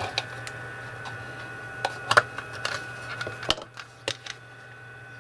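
Scattered light clicks and taps of small plastic parts of a DIY power bank case kit being handled, a few irregular ones a second or more apart, over a steady electrical hum.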